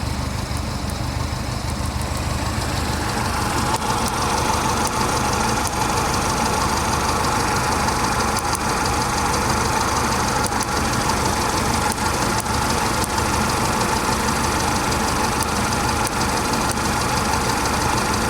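Mercedes-Benz C230 Kompressor's supercharged four-cylinder engine idling with a misfire, with faint irregular clicks of the cylinder 4 spark plug lead zapping against the engine block. The loose spark plug boot lets the spark jump to ground instead of firing the plug.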